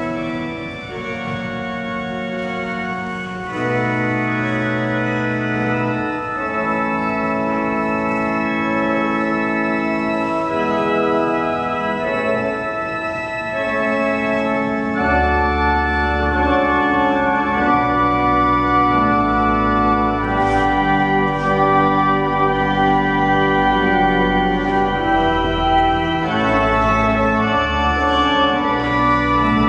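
Church organ playing slow, sustained chords; a deep pedal bass comes in about halfway through.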